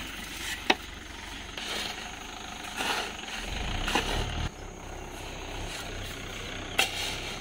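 Tractor's diesel engine idling steadily, with a hoe chopping and scraping into wet sand and sand thrown into a trolley; two sharp knocks, about a second in and near the end.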